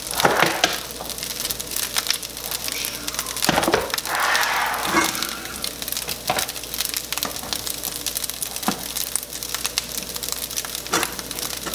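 Rice and broccoli sizzling in a frying pan on the stove, a steady crackle. Over it come clicks and rustles of plastic food containers being handled, with a denser rustle about four seconds in.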